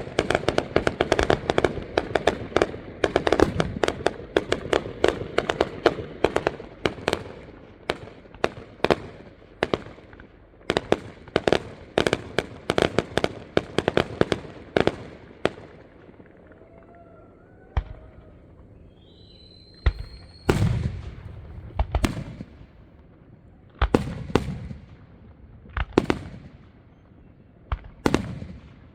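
Aerial fireworks going off: a dense barrage of rapid bangs and crackle for the first half, thinning to single booms a second or two apart, with a short whistle just past the middle.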